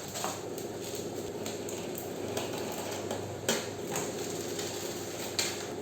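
Scattered light clinks and knocks of kitchen items being handled and set down, the sharpest about three and a half seconds in and again near the end, over a steady low hum.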